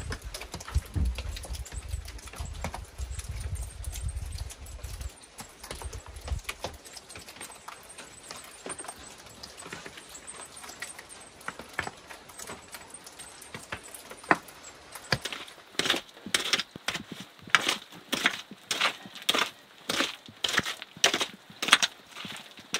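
A small hand digging tool striking and scraping into dirt, about two strokes a second, starting about two-thirds of the way through. Before that there is a low rumble with scattered faint clicks.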